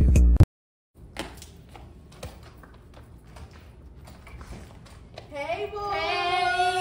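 Music cuts off just after the start. Faint clicks and room sound follow, then about five seconds in a girl's voice starts on long, drawn-out held notes.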